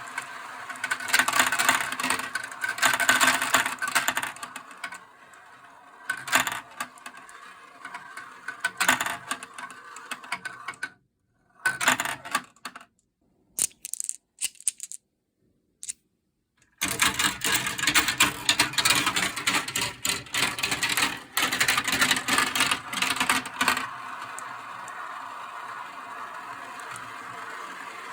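Marbles rolling and clattering down plastic marble run tracks, a steady rolling rattle with many quick clicks as they hit the pieces. About halfway it drops to near silence for a few seconds, broken by short clatters.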